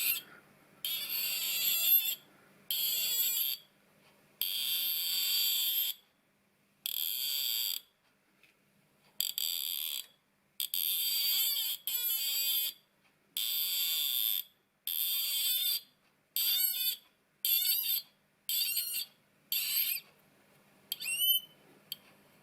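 A cutting tool squealing as it cuts brass, in a string of about fifteen short, high-pitched squeals that stop and start. The squeals get shorter toward the end, and the last few rise in pitch.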